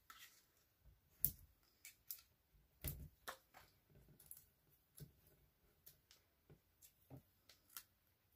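Faint, scattered clicks and taps of paper and cardstock being handled and pressed down, with a duller soft knock about three seconds in.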